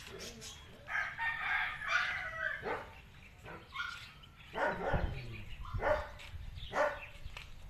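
A rooster crowing once near the start, in one long call. Then a dog barking in short single barks, about a second apart, through the second half.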